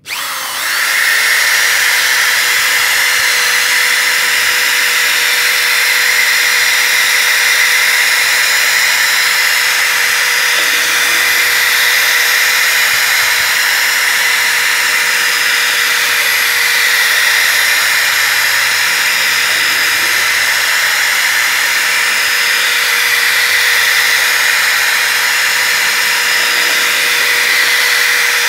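Electric hand drill spinning a bent nail as a paddle to stir wall paint thinned with water in a bucket. It spins up within the first second, then runs steadily with an even motor whine.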